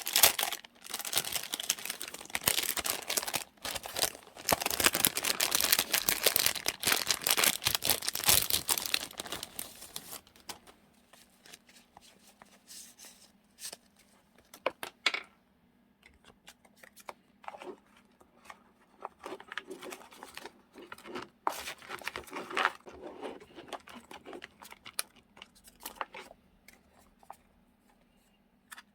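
Journaling supplies being handled and sorted: dense crinkling and rustling of paper and plastic for about the first ten seconds, then scattered light taps, clicks and soft rustles.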